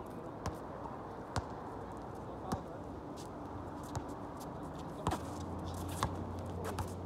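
Basketball bouncing on an outdoor asphalt court, a sharp knock about once a second at uneven intervals, over steady open-air background noise. A low steady hum joins about five seconds in.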